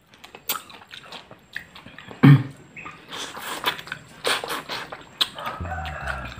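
Close-up mouth sounds of a man biting into and chewing a crispy fried corn fritter: irregular crunches and wet smacks, with one louder burst a little past two seconds in. Background music comes in near the end.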